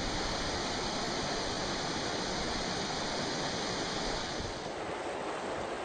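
Whitewater cascading down a small rocky waterfall: a steady, even rush of water. About four and a half seconds in, the rush abruptly changes character and drops a little.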